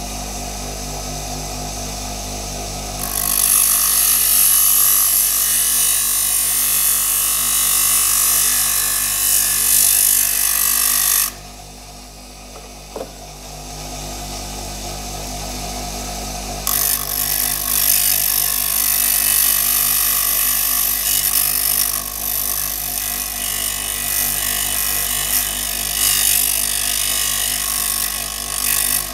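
A power grinder runs steadily while its abrasive wheel grinds a notch into the threads of a wood screw, turning the screw into a thread-cutting tap. The grinding comes in two long spells, separated by a pause of about five seconds in which the motor spins freely.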